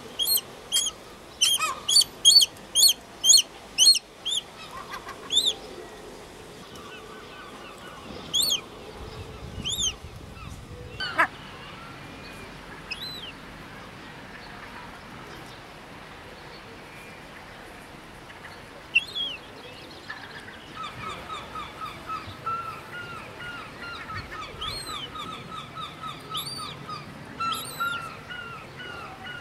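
Herring gull chick peeping: a quick run of high, arched cheeps at about two a second, then scattered single cheeps, and later a fast chatter of shorter, lower notes.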